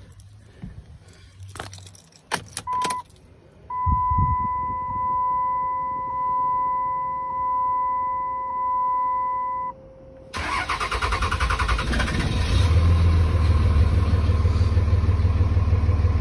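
Keys rattle in the ignition, then a dash chime sounds steadily, pulsing about once a second for some six seconds. The Ram's 5.9L common-rail Cummins diesel then cranks for about two seconds and catches, running steadily at idle. It is a cold-morning start on an engine with a hard-start problem, a little quicker than usual after a Stiction Eliminator treatment.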